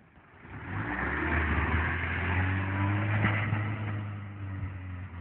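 Daihatsu Feroza engine running under throttle: its sound swells up about half a second in, holds steady and loud for a few seconds, then eases off a little near the end.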